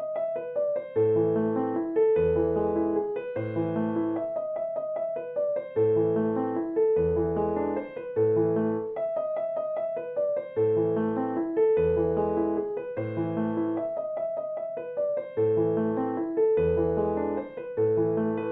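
Background piano music: a gentle repeating melody over a bass line, cycling about every five seconds.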